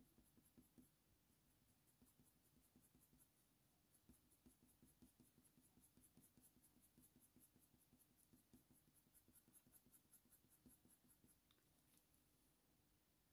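Faint scratching of a Faber-Castell Polychromos coloured pencil shading on smooth hot-press watercolour paper: short, quick, even strokes, several a second. There is a brief pause about three seconds in, and the strokes stop shortly before the end.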